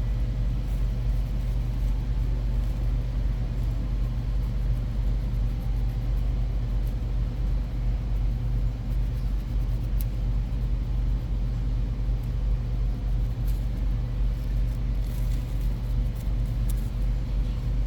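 Steady low rumbling hum of background room noise, with a few faint light clicks.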